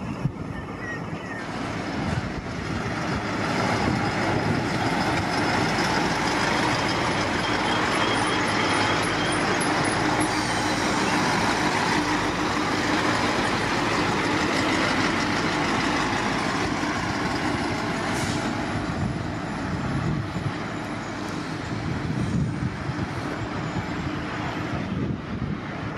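V/Line Sprinter diesel railcar set passing close by: engine and wheel-on-rail noise swells about two seconds in, stays loud with a steady engine tone for some fifteen seconds, then eases off as the train moves away.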